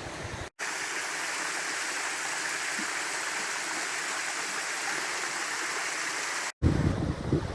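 Mountain stream pouring down a waterfall: a steady, even rush of water. Wind buffets the microphone for the first half second and again near the end.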